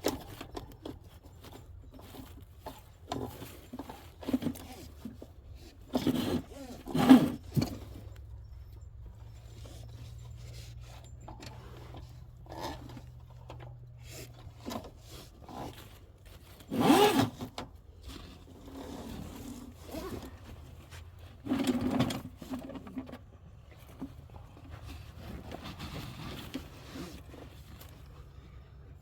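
Scattered knocks, scrapes and clatter of sewer equipment being handled and set up, the loudest clatters about 7 and 17 seconds in, with a faint low hum in the middle stretch.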